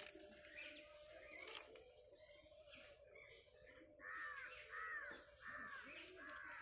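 A crow cawing repeatedly, faint. The caws start about four seconds in, at roughly one every half second.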